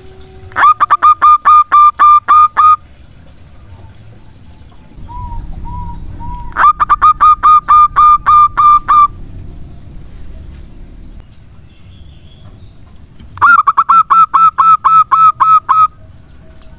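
Zebra dove (perkutut) cooing: three runs of rapid, evenly spaced staccato coos, roughly five notes a second and each run lasting two to two and a half seconds, with a few soft coos before the second run.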